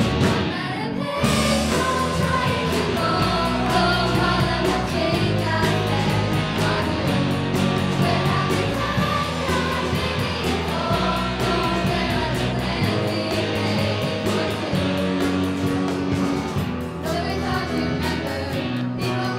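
Live pop-rock song: young girls singing lead into handheld microphones over a full band of drums, electric guitars and bass guitar, with a choir singing along behind.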